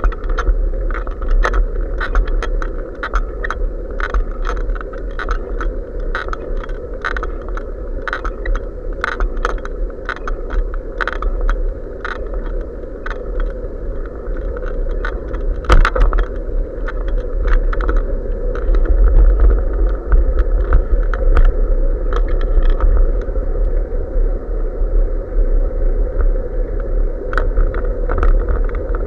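Riding noise on a bicycle-mounted SJ4000 action camera: wind buffeting the microphone as a steady heavy rumble, with frequent irregular rattling clicks from the camera and bike jostling over the asphalt, and a sharper knock about sixteen seconds in.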